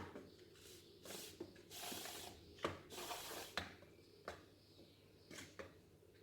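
Faint kitchen handling: a utensil scraping and rubbing against a container, with several light knocks and clicks.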